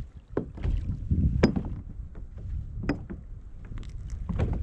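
Wind on the microphone and water moving against a plastic kayak hull, with a low steady rumble. About four short sharp clicks come from fishing tackle being handled.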